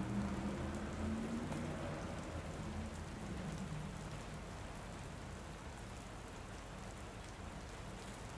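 Steady rain falling, with a low drone under it that fades away in the first few seconds.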